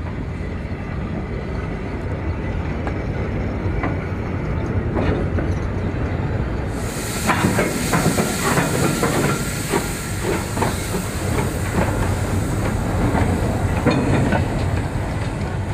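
Loose-coupled coal wagons rumbling and clanking along the track. About seven seconds in, the Hudswell Clarke 0-6-0ST saddle-tank steam locomotive passes close, with a loud hiss of steam from its open cylinder drain cocks over sharp clanks of wheels and couplings. The hiss stops a couple of seconds before the end.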